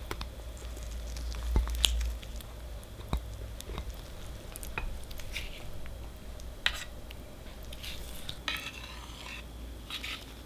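Thick chocolate ganache being spread with a metal offset spatula: soft wet scraping and squishing, with a few sharp clicks of metal tapping.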